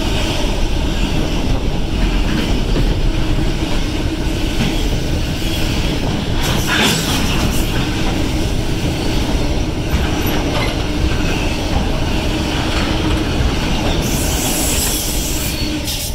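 Container wagons of a freight train rolling past at close range: a loud, steady rumble and clatter of steel wheels on the rails, with a sharper clatter about seven seconds in.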